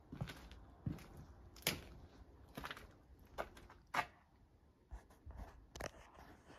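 A series of irregular knocks and clicks, about one or two a second, some sharper than others.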